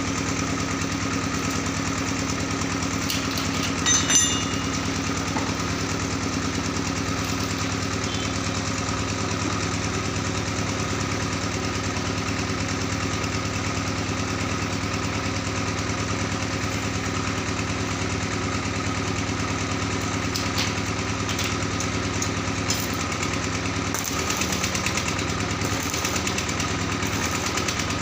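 A motor or engine running steadily with an even hum, with a brief cluster of sharp metallic clinks about four seconds in.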